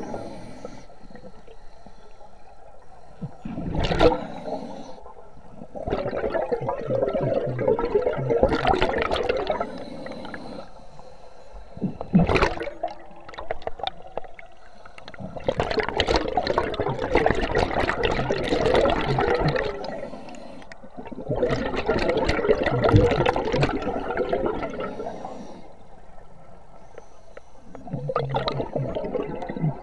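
Scuba diver breathing underwater through a regulator: bursts of exhaled bubbles lasting several seconds each, coming every six seconds or so, with short sharp sounds between them.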